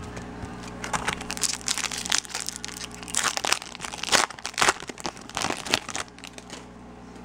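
Foil Bowman Chrome trading-card pack wrapper crinkling as it is opened and pulled off the cards by hand: a run of irregular crackles that dies down about six seconds in.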